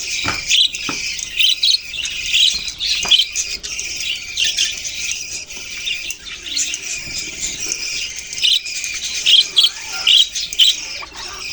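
A flock of budgerigars chirping and chattering without a break, with many short, high chirps overlapping.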